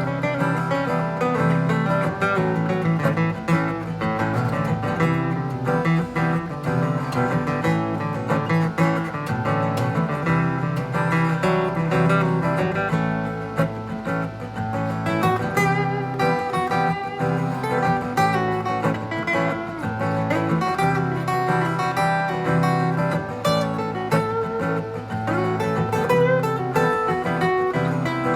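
Instrumental break of a song with strummed acoustic guitar leading, no singing.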